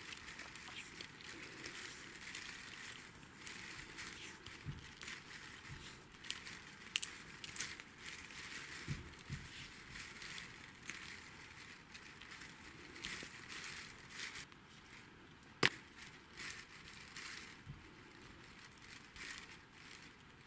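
Electrical tape crackling as it is pulled off its roll and wound around a bundle of wires, with rustling and small clicks as the sequin-leaf tree is turned in the hands; one sharper click about three-quarters through.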